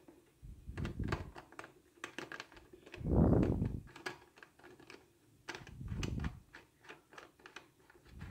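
Red plastic screw cap being twisted onto a bottle by hand: irregular small clicks as the cap's threads catch, with a few muffled low thumps of the bottle being handled, the loudest about three seconds in.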